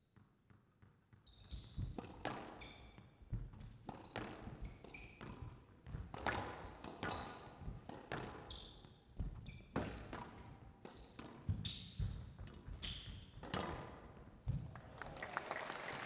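Squash rally: the ball cracks off rackets and walls in sharp irregular hits, and players' shoes squeak briefly on the court floor. Near the end the crowd starts applauding as the point is won.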